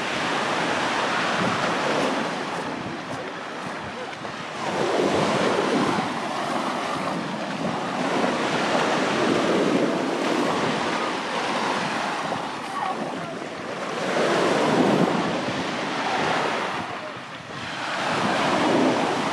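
Sea surf breaking and washing up on a beach, swelling and fading every four to five seconds, with wind buffeting the microphone.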